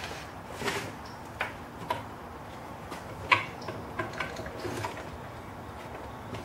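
Scattered light clicks and knocks of a fishing rod and reel bumping against a wooden rod tote as the rod is slid into its slots and through the end-plate hole, with one sharper knock about halfway through.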